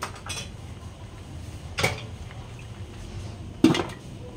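A metal lid being put on a stainless steel wok: a clank a little under two seconds in, then a louder clank near the end as the conical aluminium lid is set down on the rim, over a steady low hum.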